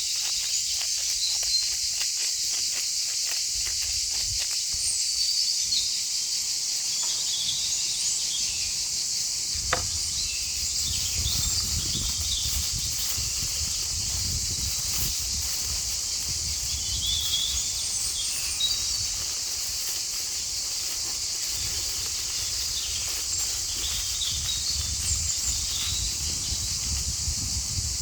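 Steady high-pitched insect chorus, with small chirps over it and a single sharp knock about ten seconds in, followed by a low rumble.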